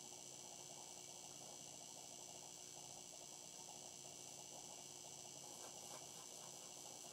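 Near silence: a steady faint electrical hum and hiss, with faint rustling of a hairbrush back-combing hair.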